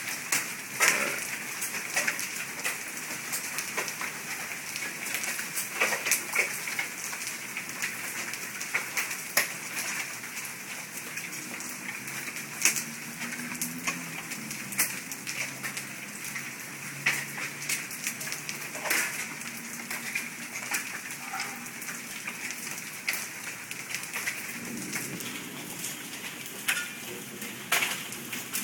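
Hail coming down steadily with rain: a constant hiss with frequent, irregular sharp cracks of hailstones hitting the ground and roofs, sounding like rocks falling on the ground.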